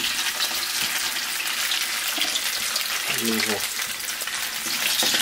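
A tuna patty sizzles in hot oil in a frying pan, a steady hiss with fine crackles. A short burst of a voice comes about three seconds in.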